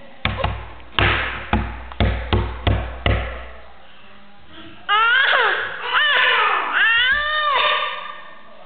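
A baby's hands slapping a wooden coffee tabletop, about eight hollow thumps over three seconds. Then the baby lets out three long squeals that sweep up and down in pitch.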